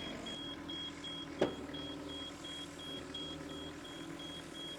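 Hitachi EX55UR mini excavator's diesel engine running steadily at idle, with a high warning beep pulsing rapidly throughout. A single sharp knock sounds about a second and a half in.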